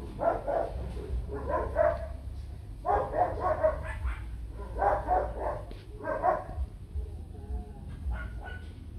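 Dogs barking in five short bouts, about one every second and a half, that stop about six and a half seconds in, over a steady low rumble.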